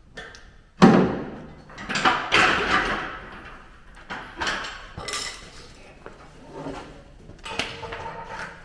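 A series of knocks and clanks from work on a car body shell, each with a short ring. The loudest comes about a second in, followed by several more over the next few seconds.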